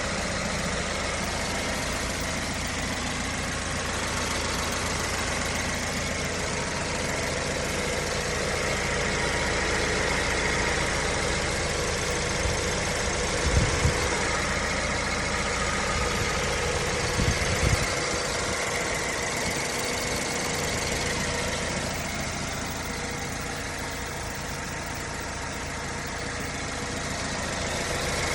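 BMW 116i (E81) four-cylinder petrol engine running at idle with a ticking noise whose cause the owner cannot identify. A couple of short low thumps come through in the middle.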